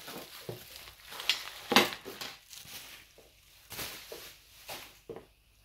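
Bubble wrap and clear plastic parts bags crinkling and rustling as they are unwrapped and handled, in irregular bursts, the loudest a little under two seconds in.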